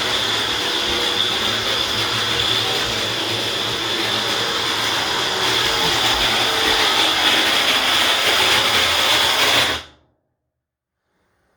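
Broken washing machine running with a loud, steady whir and a high-pitched whine through it: the odd noise of its fault. It cuts off suddenly near the end.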